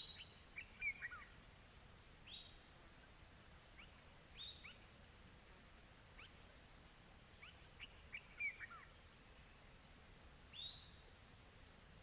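Outdoor ambience: a steady, rapidly pulsing high chorus of crickets, with short bird chirps every couple of seconds and two brief twittering calls, one about a second in and one past the middle.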